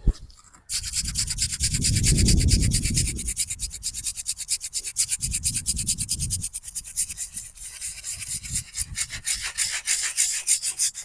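A stiff brush scrubbing a headstone's carved letters and surface after it has been sprayed with D2 cleaner. The strokes go quickly back and forth, several a second, starting about half a second in. A low rumble comes twice underneath.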